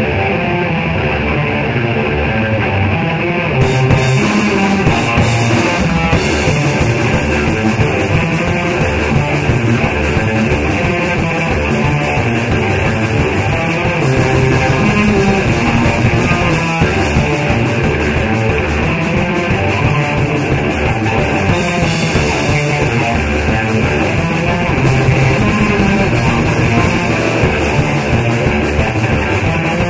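Rock music with guitar, which grows fuller about four seconds in.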